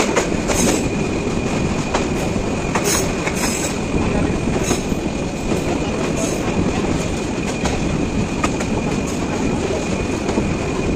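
Moving train running steadily: a continuous rolling rumble with scattered sharp clicks and a faint steady high whine.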